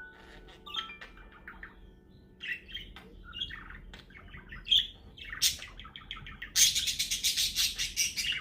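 Budgerigars chirping in short, scattered calls, breaking into a loud, fast scratchy chatter about two-thirds of the way through.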